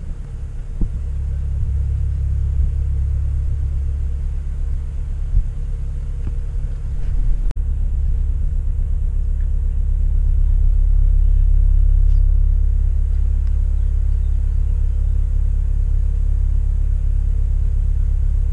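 Widebeam canal boat's diesel engine running steadily while cruising: a loud, even low rumble with a faint steady hum above it. It breaks off for an instant about seven and a half seconds in, then carries on.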